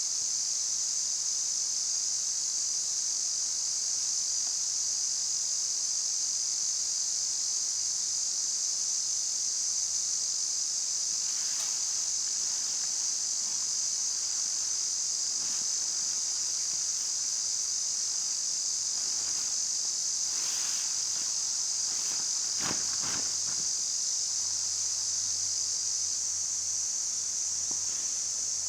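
A steady, high-pitched chorus of insects, crickets or similar, running throughout. A few brief knocks and rustles sound around the middle and in the second half.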